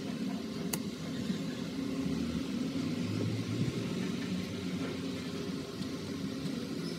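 Low steady rumble of background noise, with one sharp click about a second in as a lighter is struck to light a candle.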